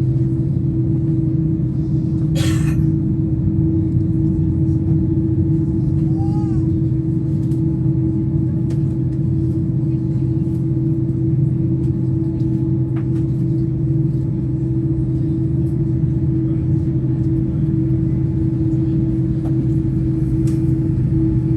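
Steady drone inside a Boeing 787-9 cabin on the ground, a constant hum over a low rumble. There is a brief hiss about two and a half seconds in.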